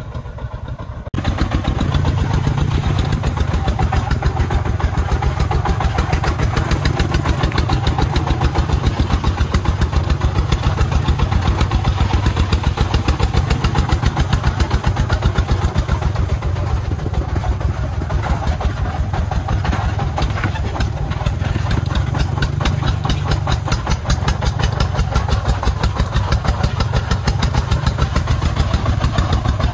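Single-cylinder diesel engine of a three-wheeled công nông truck running with a rapid, even beat as it hauls a load of sand. It is heard close up and becomes suddenly louder about a second in.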